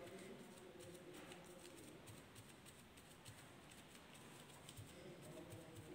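Near silence, with faint irregular soft taps of a paint-loaded sponge dabbing through a paper stencil onto card.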